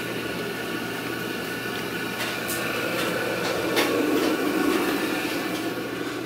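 A steady mechanical hum, with a few light clicks and knocks a little past halfway.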